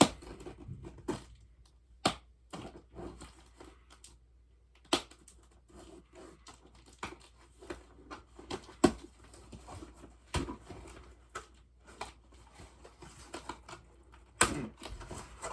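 Packaging and small items being handled during an unboxing: irregular clicks, taps and crinkling, with a few sharper knocks.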